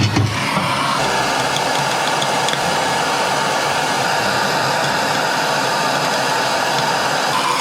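Propane torch flame hissing steadily while heating a pipe fitting to melt solder into the joint.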